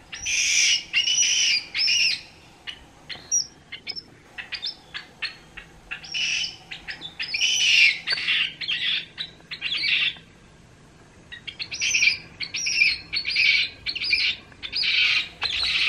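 Baby woolly monkey screaming in a temper tantrum: repeated high-pitched shrieks in bouts, with a short lull a little past the middle. These are distress screams calling for its absent foster caretaker.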